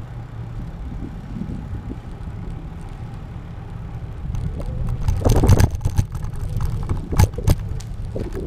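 Bicycle riding on city pavement, with wind rushing on the camera microphone and a steady low road rumble. From about five seconds in it grows louder, with several sharp knocks and rattles as the bike rolls onto rough, patched pavement.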